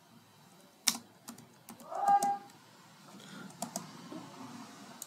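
A few scattered computer keyboard keystrokes, the sharpest about a second in, with pauses between them.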